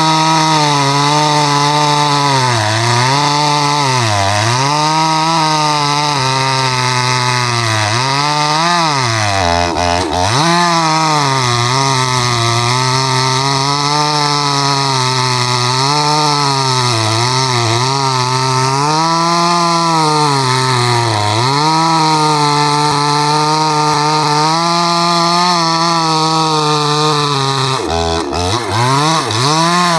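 62cc two-stroke chainsaw running at full throttle through a log. The engine's pitch wavers as the chain loads up in the wood, and it bogs down sharply twice, about ten seconds in and near the end, before climbing back.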